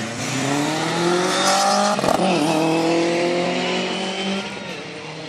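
Rally car engine accelerating hard, its note rising, then a short sharp pop at a gear change about two seconds in, after which it rises again and fades as the car moves away.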